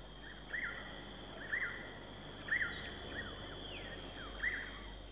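A bird chirping with short arched calls about once a second, over a steady thin high-pitched tone.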